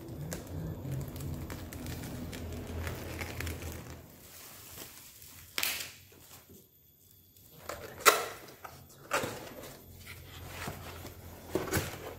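Plastic shipping mailer rustling as it is slit open with a box cutter. After that a cardboard box is handled and its lid lifted, with several sharp knocks and taps.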